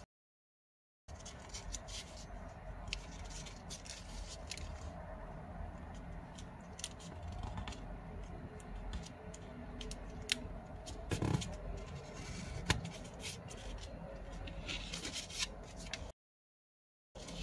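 A square of origami paper being folded and creased by hand on a tabletop: scattered crisp paper crackles and clicks with soft rubbing as fingers press the folds, one louder crackle about eleven seconds in. The sound cuts to dead silence for about a second near the start and again near the end.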